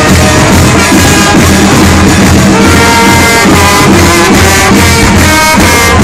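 Loud festive music with brass and a steady beat, playing for the ballata, the dance of Saint Anthony the Abbot's statue as it is carried before the crowd.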